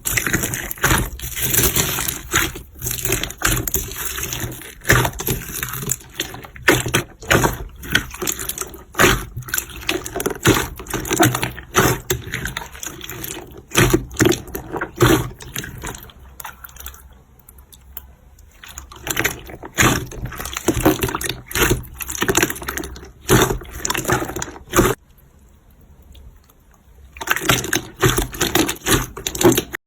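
Slime being squished and worked: irregular wet squelching with many sharp little pops and clicks, pausing briefly twice in the second half.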